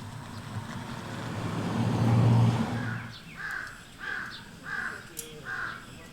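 A car passes, its engine and tyre noise swelling to a peak about two seconds in and then fading. A crow then caws about five times in an even series.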